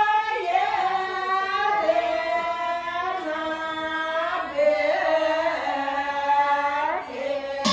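Women singing unaccompanied, the lead voice through a handheld microphone, with long held notes that bend up and down in pitch.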